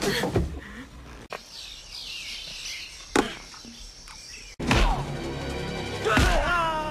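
Film soundtrack: a sharp single hit about three seconds in, then dramatic music from about five seconds, with a loud fight impact near the end.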